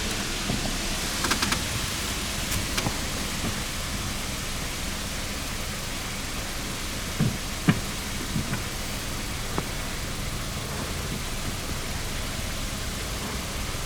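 Car engine idling steadily with the clutch pedal pressed, with no whine or rattle from the clutch release bearing: the new clutch kit has cured the noise. A few faint knocks sound about seven to eight seconds in.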